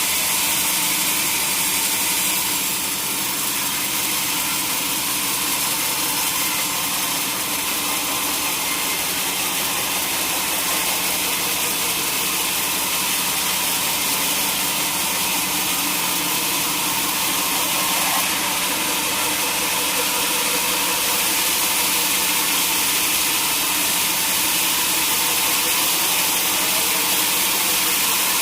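Sawmill saw running steadily, a loud even rushing noise with a low steady hum underneath.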